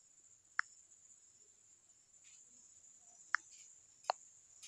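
Three short, faint clicks, spaced a second or more apart, from key taps on a phone's on-screen keyboard. A faint, steady high-pitched whine runs underneath.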